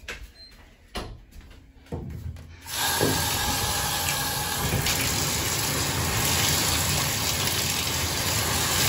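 A few light knocks, then a bathroom sink faucet is turned on about two and a half seconds in, and water runs steadily from the two-handle faucet into the sink with a hand held in the stream.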